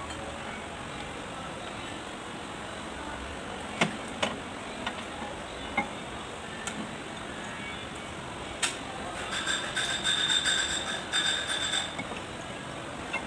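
Metal parts or tools clinking and knocking against one another: a few separate knocks, then from about nine seconds in a quick run of ringing metallic clinks, over a steady background hiss.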